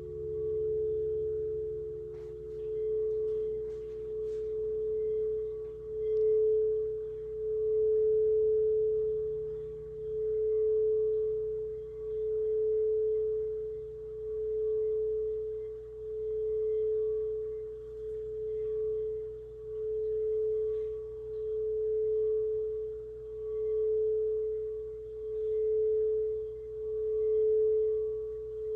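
Quartz crystal singing bowl sustaining one steady, pure tone that swells and fades about every two seconds. A second, lower bowl tone dies away about six seconds in.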